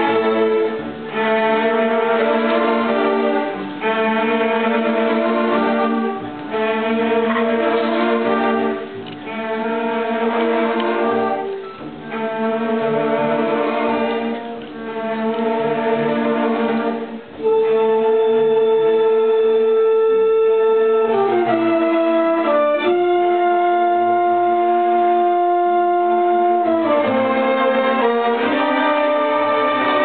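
String orchestra of violins and cellos playing a classical piece: short repeated phrases with brief breaks between them, then, from a little past the middle, long held chords that shift down in pitch and change again near the end.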